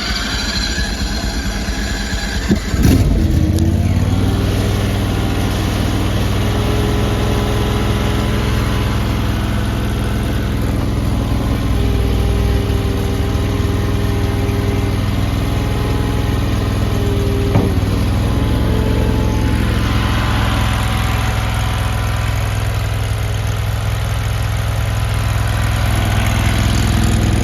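Gas engine of a compact AGT LRT23 skid steer loader starting: it catches about three seconds in and then runs steadily.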